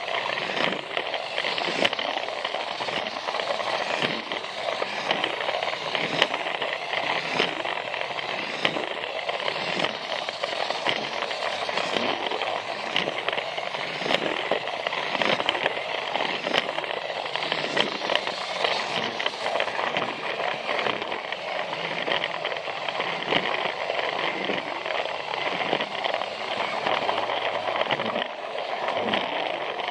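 Plarail toy train's battery-powered motor and gears running, its wheels rolling over plastic track: a steady, dense crackling rattle with a regular low knock repeating under it.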